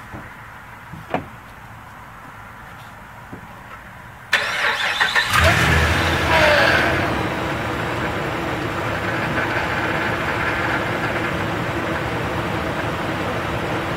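Dodge Ram's 5.7-litre Hemi V8 cranked by the starter about four seconds in, catching after about a second with a brief rev, then idling steadily while the steering is worked to bleed air from a freshly installed power steering pump. A couple of light clicks come before the start.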